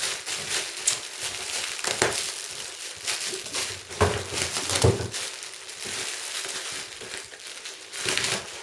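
Clear plastic packaging film crinkling and crackling as a small dog noses and bites at it, with a few louder crackles along the way.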